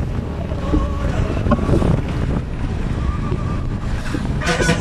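Wind buffeting the phone's microphone at the window of a moving road vehicle, over the steady low rumble of the vehicle driving along.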